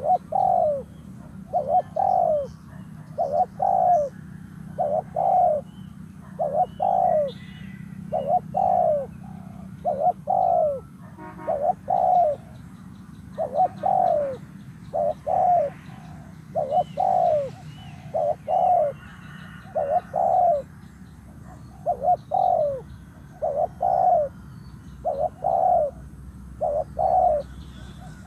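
Spotted dove cooing: a low call repeated over and over, about once a second, with fainter high chirps of small birds in the background.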